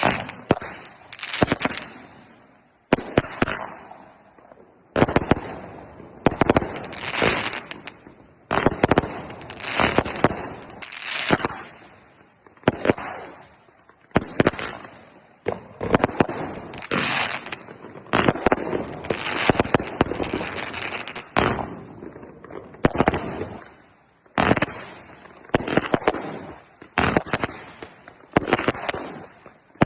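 A 288-shot firework cake firing in quick succession: sharp launch reports and aerial bursts come in clusters every second or two, each trailing off in crackle.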